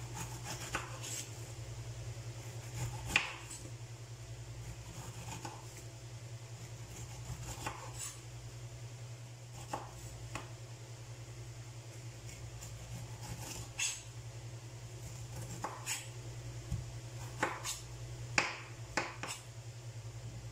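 Kitchen knife slicing the peel off a whole pineapple on a wooden cutting board, with irregular sharp knocks every second or two as the blade strikes the board, over a steady low hum.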